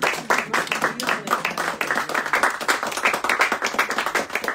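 Small audience applauding, many hands clapping quickly and unevenly; the applause dies away near the end.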